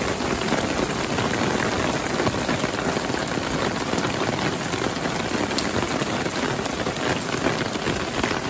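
Torrential rain falling steadily on a wet paved street, a dense even hiss of drops.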